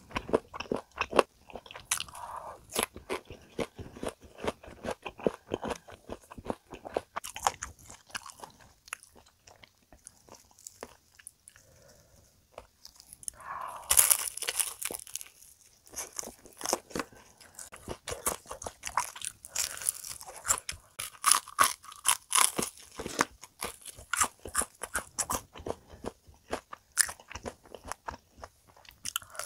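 Close-up eating sounds of crispy fried chicken: crunchy chewing at first, with chicken cartilage being crunched. About halfway through comes a loud crunchy bite into a fried piece, followed by more crackling chewing.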